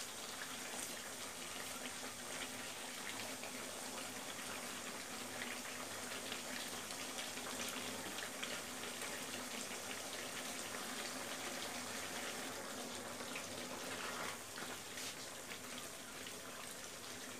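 Beef pieces and spice paste sizzling steadily in a non-stick kadai while being stirred with a wooden spatula. This is the kosha stage of a beef bhuna, frying the spices down into the meat.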